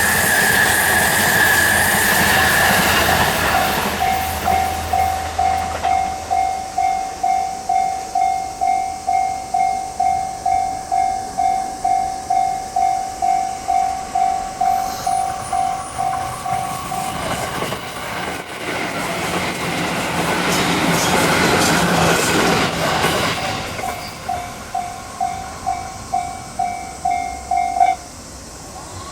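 Japanese railway level-crossing warning bell ringing about twice a second while trains run past, one at the start and another about two-thirds of the way through. The bell cuts off suddenly near the end, the sign that the crossing is clearing.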